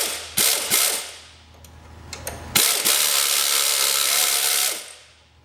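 Impact wrench loosening a stubborn chassis bolt: a few short bursts, a pause with a few clicks, then a steady run of about two seconds that stops near the end.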